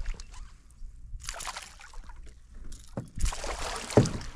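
A hooked northern pike thrashing and splashing at the surface right beside a canoe while it is being netted. The splashing comes in two spells, about a second in and again near the end, with two sharp knocks toward the end.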